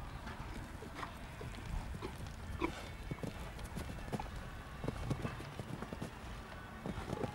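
Hoofbeats of a show-jumping horse cantering on grass and taking a fence: a run of irregular thuds over a steady low rumble.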